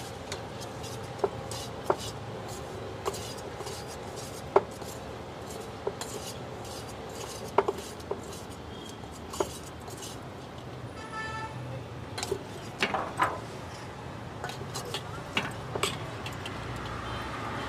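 A steel spoon stirring and scraping a chopped onion, capsicum, green garlic and coriander mix in a stainless-steel bowl, with irregular sharp clinks of the spoon against the bowl, over a faint low background hum.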